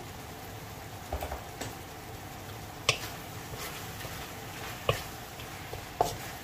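Wooden spatula stirring shrimp in a stainless steel wok, knocking and scraping against the metal with a handful of sharp, irregularly spaced clacks, the loudest about three seconds in. A faint steady hiss from the pan runs underneath.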